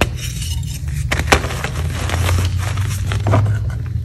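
A disc of reformed gym chalk pressed and crumbled between the thumbs: soft crackling with a few sharp cracks, about a second in and again past three seconds. A steady low hum runs underneath.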